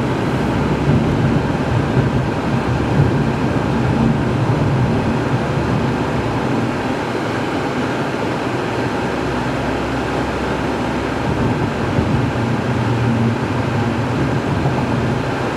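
Steady road and engine noise of a car being driven, heard from inside the cabin, with a low hum.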